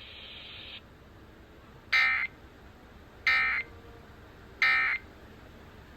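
Three short Emergency Alert System end-of-message data bursts over FM radio, harsh electronic squawks about 1.3 seconds apart. They signal the close of the severe thunderstorm warning message.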